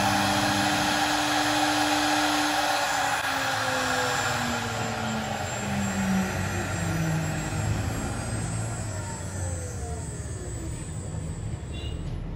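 CNC router spindle motor spinning down: its whine falls steadily in pitch over about ten seconds while the overall machine noise slowly fades.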